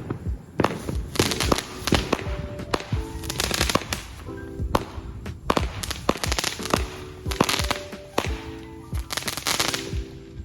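Consumer fireworks going off: a rapid run of sharp cracks and pops, with several denser bursts of crackling, over background music.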